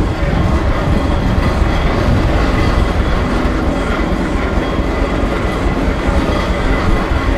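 Steam traction engine on the move, heard from the ride towed behind it: a loud, steady rumble of the working engine and wheels rolling over the road.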